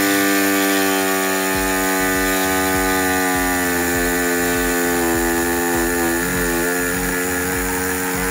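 Small handheld electric saw running steadily as it cuts the plastic tabs off a truck's air box inlet. The motor pitch sags slightly as the blade works through the plastic.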